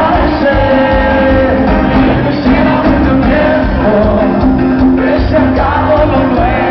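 Cuarteto band playing live with a male singer: loud amplified dance music with a steady bass beat under the vocal melody.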